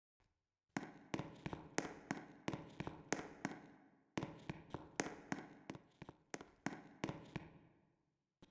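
A rapid series of sharp knocks or strikes, about three a second, each with a short ring after it, in two runs of about three seconds each.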